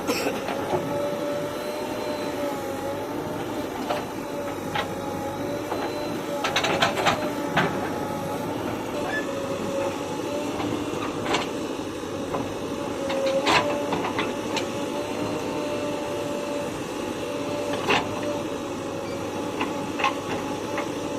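Bulldozer working: a steady, slightly wavering engine drone with sharp metallic clanks at irregular intervals, several of them close together about six to seven seconds in.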